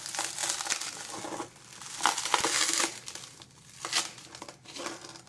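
Plastic crackling and crinkling as a tablet's LCD panel is bent and handled by hand, in two spells, then a single sharp click about four seconds in.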